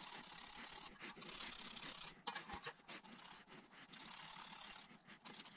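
Faint, steady hand scraping and scrubbing as rust is worked off a Toyota Celica's steering knuckle, with a few light clicks.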